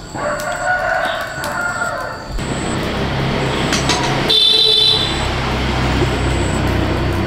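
A rooster crowing once, about two seconds long. Then a low, steady engine hum starts and runs on, with a brief high-pitched sound about four seconds in.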